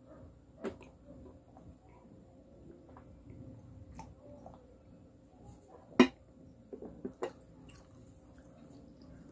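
Quiet sipping of broth from a ceramic mug, then one sharp knock about six seconds in as the mug is set down on the table, followed by a few lighter clicks.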